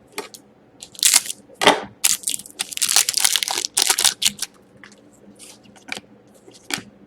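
Crinkling and rustling of trading-card pack wrappers and cards being handled, in a dense run of scrapes for a few seconds, then a few short, sparse scrapes.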